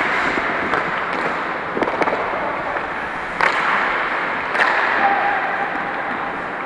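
Ice hockey play: skate blades scraping across the ice, with about half a dozen sharp clacks of sticks and puck.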